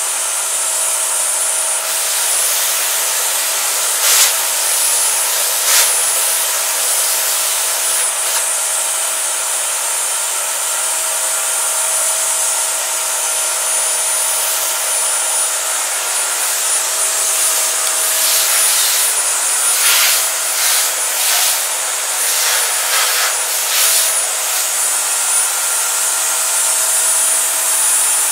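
Loud, steady machine noise from an electric motor with a rushing, hissing air flow and a thin high whine. A few short louder bursts come about four and six seconds in, and several more between about eighteen and twenty-four seconds.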